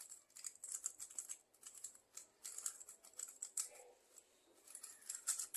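3x3 speed cube being turned very fast during a timed solve: rapid runs of plastic clicking, with a short lull about four seconds in and a sharper knock near the end.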